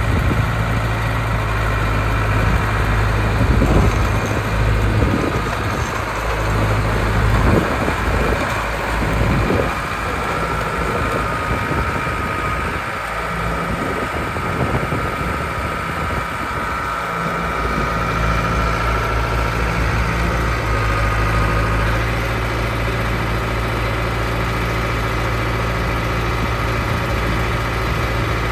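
Caterpillar D3B LGP crawler dozer's diesel engine running as the machine travels and turns, with irregular clanks in the first third that fit its steel tracks. A high steady whine joins in from about ten seconds to about twenty-two seconds.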